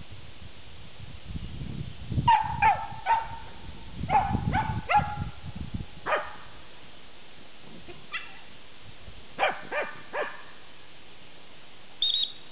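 Dandie Dinmont Terriers barking in short, high yaps, in quick groups of two or three with pauses between. Near the end comes one brief high-pitched squeal.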